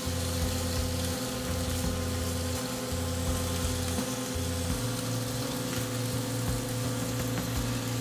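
Ribeye steak sizzling in a cast-iron grill pan: a steady frying hiss over a steady low hum.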